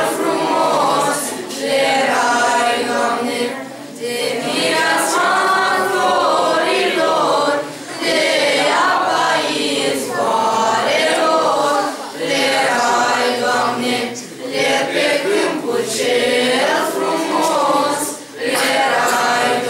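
A mixed group of young voices singing a Romanian Christmas carol (colind) unaccompanied, in short phrases with brief pauses for breath between them.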